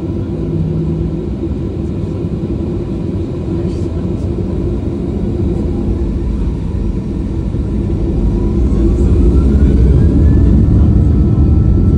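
Boeing 737-800's CFM56-7B turbofan heard from inside the cabin: a steady low rumble, then about eight seconds in a whine rises in pitch and levels off as the rumble grows louder, the engine spooling up as thrust comes up for the take-off.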